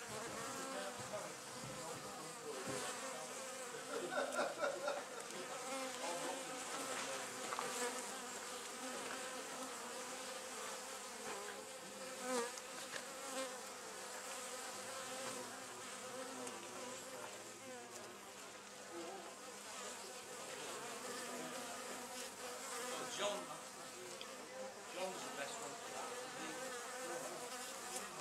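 Honey bees buzzing around their hive entrance: a steady hum of many wings, swelling louder a few times as single bees fly close.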